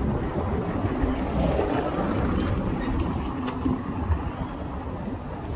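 Wind buffeting the microphone: a loud, gusting low rumble with no steady tone.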